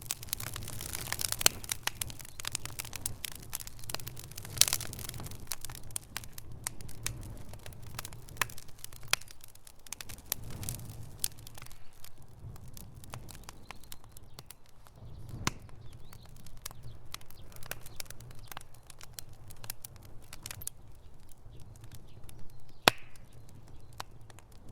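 Campfire crackling: irregular sharp pops and snaps, a few much louder than the rest, over a low steady rumble.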